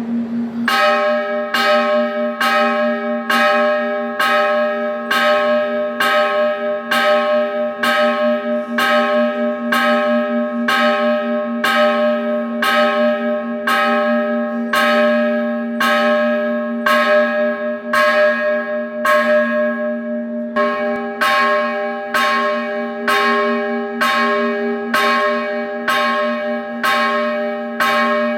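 Large Hindu temple bell rung steadily, about three strokes every two seconds, each stroke ringing on into the next with a deep, steady tone.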